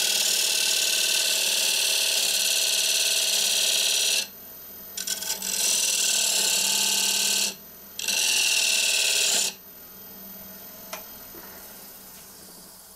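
A lathe tool scraping fine grooves into the face of a spinning wooden disc, a hiss in three bouts: about four seconds, then about two, then about one and a half. Between and after the cuts the lathe runs on alone, fading near the end.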